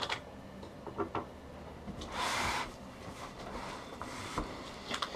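Heavy cardboard boxes, each holding a car wheel, being handled and shifted: a few light knocks, a scrape of cardboard rubbing on cardboard about two seconds in, and a couple of dull knocks near the end as a box is moved.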